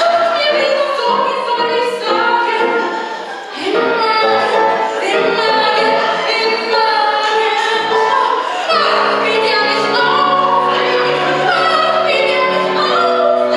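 A woman sings a German cabaret chanson with piano accompaniment. From about two-thirds in, steady low piano notes are held under the voice.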